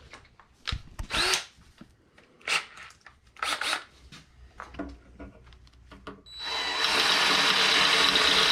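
Power drill boring bolt holes in a metal bracket: a few short bursts, then a steady run with a constant motor whine for the last two seconds.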